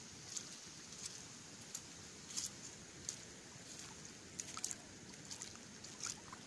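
Faint trickle and slosh of shallow water over a wet tidal mudflat, with scattered sharp clicks and pops about one or two a second.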